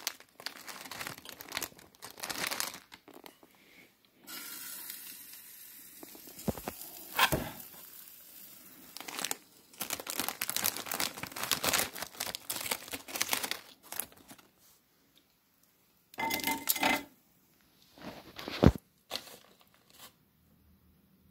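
Plastic wrapper of an instant ramen packet crinkling, rustling and tearing as it is handled and the dry noodle block is pulled out. Near the end come a few knocks and one sharp clack, the loudest sound, as a plate goes into the microwave.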